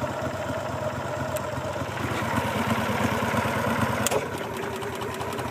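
Gator-Tail GTR 23 surface-drive mud motor running steadily in reverse. A single sharp click comes about four seconds in, as the forward/reverse shift lever is worked.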